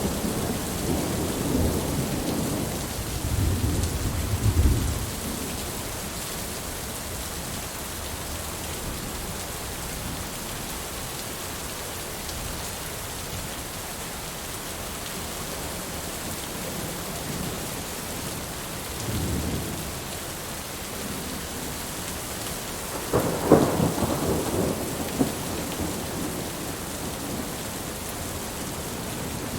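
Steady rain falling, with thunder rolling: a low rumble fading in the first few seconds, a short one a little past midway, and a louder clap and rumble about three-quarters of the way through.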